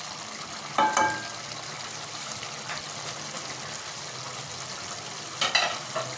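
Chicken karahi gravy bubbling and sizzling steadily in a steel pot, with a wooden spatula clattering against the pot about a second in and another short clatter near the end.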